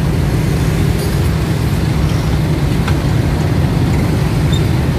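Steady low rumble of city street traffic, with a faint click about three seconds in.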